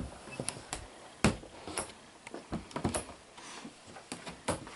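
Irregular light clicks and knocks of handling around a reptile enclosure, with hands and camera bumping against cage parts; the sharpest knock comes about a second in, another near the end.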